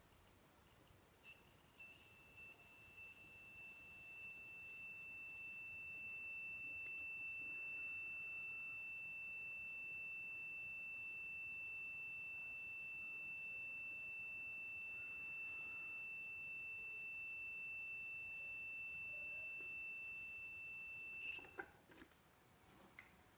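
A multimeter's continuity buzzer sounding one steady high-pitched tone for about twenty seconds, then cutting off suddenly. A few light clicks of the test probes come just before and just after it.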